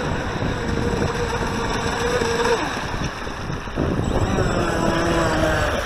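Volantex Atomic 792-4 RC race boat's electric brushless motor whining steadily as it runs on the water. The whine drops away about two and a half seconds in and returns at a lower pitch near the end as the boat comes in toward shore. Wind rumbles on the microphone throughout.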